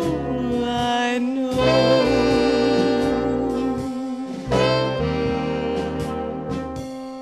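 Big band jazz music, with saxophones and brass holding long, sustained chords. A fresh chord comes in about four and a half seconds in, and the sound then slowly fades.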